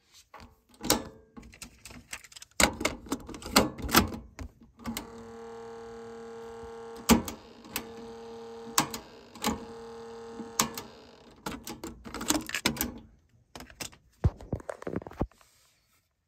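Sony TC-FX160 cassette deck's piano-key transport controls clunking and clicking as they are pressed, with a steady low hum from about five seconds in to about eleven seconds, a few more clicks landing on top of it.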